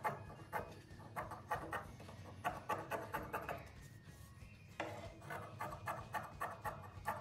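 Large tailor's shears snipping through thin fabric in a quick run of cuts, about three or four snips a second, pausing for about a second in the middle before cutting again.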